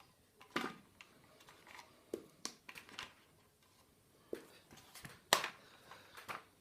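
Rubber stamps being handled and pressed onto card on a tabletop: a scattered series of small taps and clicks, the sharpest about five seconds in.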